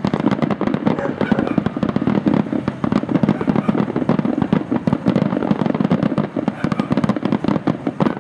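Aerial fireworks going off in a dense, continuous barrage of rapid bangs and crackles, many bursts a second running into one another.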